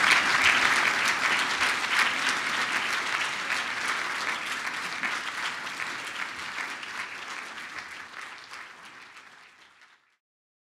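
Audience applauding, many hands clapping together, the sound fading steadily and then cutting off near the end.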